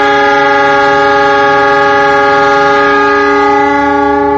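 Train horn sounding one long, steady, loud blast of several tones at once.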